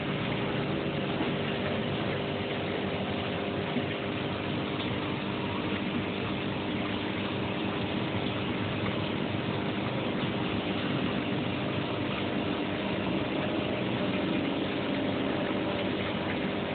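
Aquarium equipment running: a steady hum with several held tones under an even hiss.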